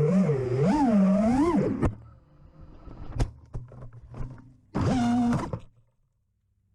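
FPV quadcopter's brushless motors whining, the pitch rising and falling with the throttle. About two seconds in the whine cuts off with a knock, followed by scattered knocks and rustles, then a short steady burst of motor whine about five seconds in that stops abruptly.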